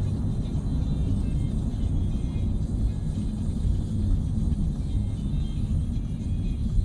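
Steady low rumble of a car driving along a road, with music playing over it.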